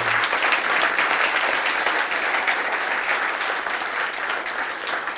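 Audience applauding: many hands clapping at once, steady, easing off slightly near the end.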